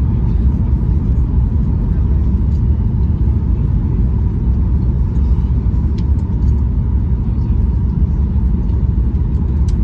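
Steady cabin noise inside a Boeing 737 MAX 8 on approach: a low rumble of airflow and its CFM LEAP-1B engines, with a faint steady tone above it.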